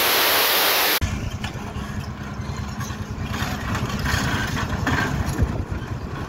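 A steady, loud hiss for about the first second, then an abrupt change to a Caterpillar tracked hydraulic excavator's diesel engine running with a low, pulsing rumble.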